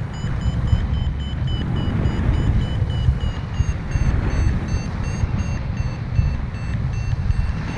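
Strong wind buffeting the microphone in flight, with a paragliding variometer giving rapid, evenly spaced short high beeps that drop slightly in pitch about three seconds in: the vario's climb signal, showing the glider is in rising air.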